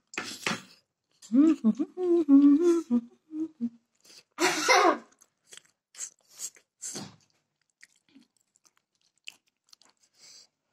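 Close-up chewing and wet mouth clicks of a person eating a steamed cauliflower momo. A voice is heard briefly in the first few seconds, and there is a short hissy breath about halfway through.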